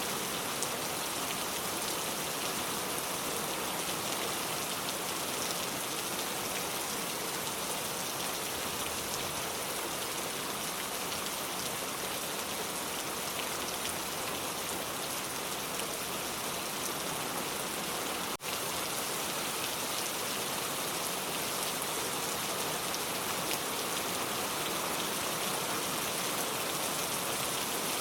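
Steady rain falling, an even hiss of many fine drops, with a momentary drop-out about eighteen seconds in.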